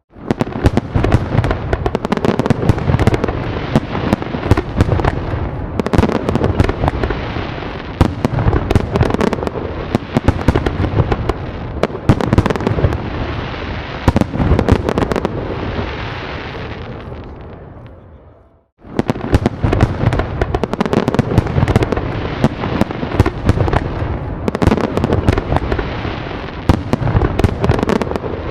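A fireworks barrage: many rapid overlapping bangs and crackles over deep booming. It fades out about two-thirds of the way through and starts again abruptly.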